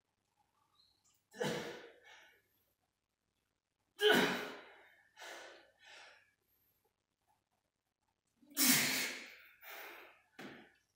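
A lifter's heavy, gasping breaths between reps of a 100 kg barbell back squat, late in a 21-rep set. There are three loud gasps about three to four seconds apart, each followed by one or two shorter breaths.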